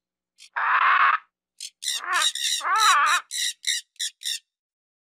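Blue-and-yellow macaws squawking: one harsh screech about half a second in, then a run of shorter, wavering squawks and calls for the next few seconds.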